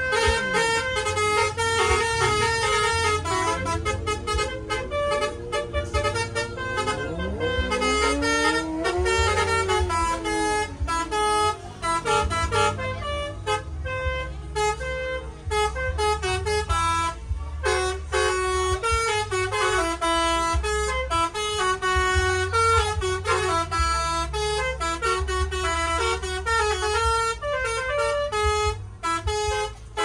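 Indonesian bus 'telolet basuri' multi-tone horn playing a fast melody of stepped notes, with a low rumble underneath. Several tones slide up and down together, like a siren, about eight to ten seconds in.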